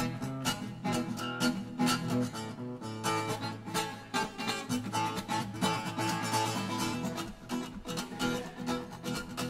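Acoustic guitar strummed in a quick, steady rhythm of repeated chords, played solo with no singing.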